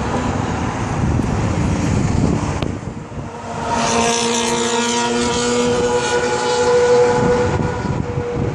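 Wind buffeting the microphone, then, starting just under four seconds in, a passing motorcycle's engine at a steady pitch for about three and a half seconds before it fades.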